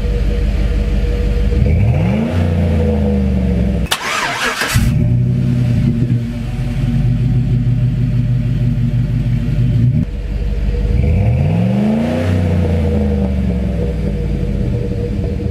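Exhaust of a 2008 Chevrolet Tahoe's 5.3-litre V8 idling with a deep, steady note and revved twice, near two seconds and again near twelve seconds, each time rising and falling back to idle. A short rush of noise about four seconds in.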